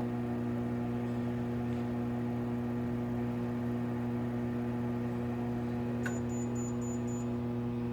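Allied High Tech MultiPrep polisher/grinder running, giving a steady electric hum with no change in speed. A faint, brief high tone comes in about six seconds in.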